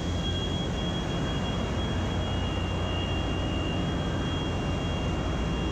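Steady engine-room machinery noise from a tanker's running cargo pump turbines: a constant low hum with two thin, steady high whines over it.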